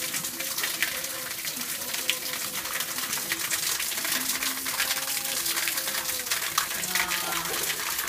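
Thin waterfall, a single narrow stream falling down a stone wall and splashing steadily onto the stones below, with a constant hiss full of small splashes.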